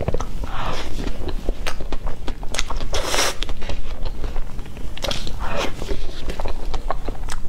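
Close-miked mouth sounds of eating soft cream cake from a spoon: many wet chewing and smacking clicks. A few short hissing rushes come in between, the loudest about three seconds in.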